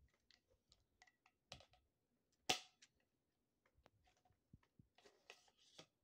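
Scattered small clicks and knocks from a plastic Dirt Devil Swiftstick stick vacuum being handled, the loudest knock about two and a half seconds in, against near silence.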